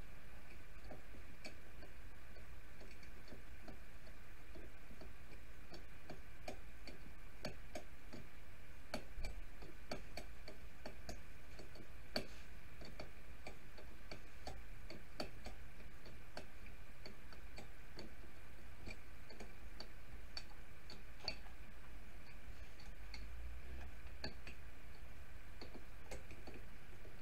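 Small irregular clicks and taps as bleeder-line fittings and tubing are handled and fitted onto a brake master cylinder held in a bench vise, over a steady background hum.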